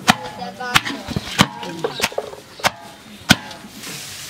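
Kitchen knife chopping food: about six sharp knocks at an even pace, over voices chattering. A steady hiss comes in near the end.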